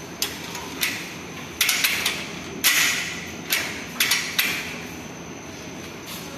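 Hammer blows struck at an irregular pace, about nine sharp strikes over four seconds followed by a pause, during fitting of a door lock into a gate.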